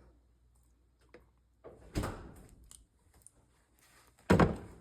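Kitchen handling knocks while soy milk is added to mug-cake batter: a knock about two seconds in, then a louder solid thunk near the end, as of a container set down hard on the countertop.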